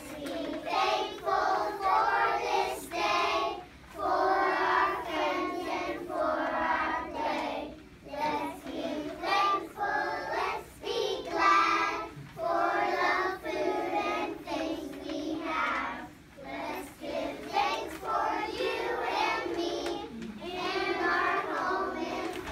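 A group of young children singing a song together in unison, in short phrases with brief breaks between them.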